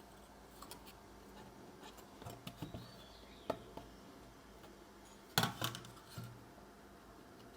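Scattered light clicks and taps of small parts and tools being handled on a workbench, with a sharper click about three and a half seconds in and a short cluster of knocks about five and a half seconds in.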